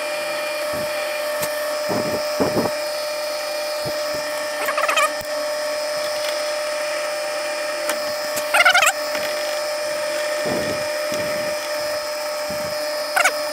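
Drill press running steadily with its bit cutting through a steel shaft, screeching briefly twice as it bites. The motor cuts off right at the end.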